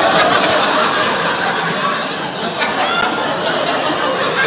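An audience laughing and chuckling together in a hall, with a few scattered voices mixed in.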